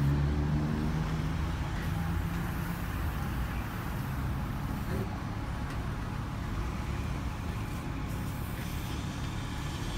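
Street traffic: a passing vehicle's engine fades away in the first second, leaving a steady rumble of road traffic.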